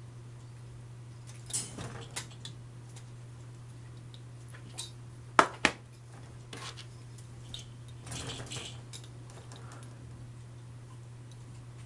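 Small metal parts clicking, knocking and scraping as they are handled and fitted together by hand: an aluminium box-section motor bracket and coupler being fitted onto a spindle block. Scattered light clicks, two sharp knocks a little over five seconds in, and a short scraping clatter around eight seconds, over a steady low hum.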